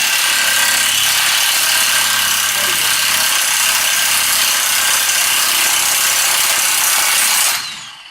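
Pneumatic wrench (air gun) running steadily as it spins a rusty bolt loose, then cutting off near the end.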